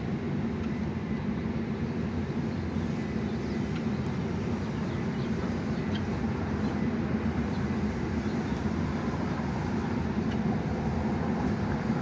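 A steady low rumble holds at an even level throughout, with only a few faint, brief ticks above it.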